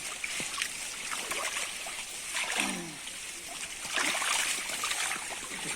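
Pond water splashing and sloshing in uneven surges as a net's catch is handled, with a short falling voice-like cry about halfway through.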